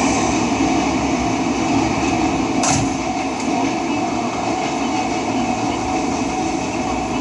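A 583-series electric train moving slowly over the station pointwork, a steady running noise with one brief sharp clank about two and a half seconds in.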